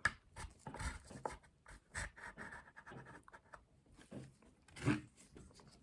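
Pipe cleaner scratching and dabbing stain onto a briar pipe bowl: soft irregular scratches and small clicks of handling, with a louder rustle about five seconds in.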